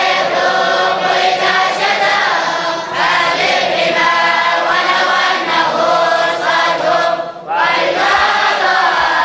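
Several voices chanting together in unison, drawing out long held notes with slow pitch glides, with a short break about seven and a half seconds in.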